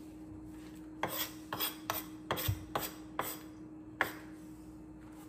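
Metal spoon scraping spaghetti squash seeds and pulp across a wooden cutting board: a quick run of short scrapes, then one more about four seconds in.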